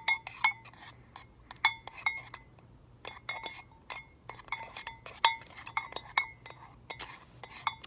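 A spoon clinking against a bowl again and again while it stirs slime ingredients (glue, shaving cream and contact lens solution). The strikes come irregularly, a few a second, each with a short ringing note.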